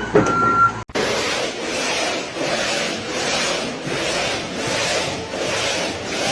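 Rhythmic rasping strokes, like a tool worked back and forth over a rough surface, swelling and fading about every two-thirds of a second, starting about a second in. A short steady high tone sounds before them.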